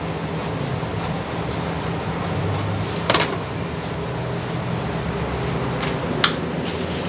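Steady mechanical hum of running kitchen equipment, with a sharp knock about three seconds in and a lighter click about six seconds in.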